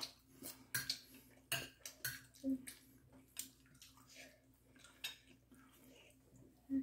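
Metal spoon clinking and scraping against a ceramic plate while scooping food: a string of separate sharp clicks at an irregular pace, over a faint steady low hum.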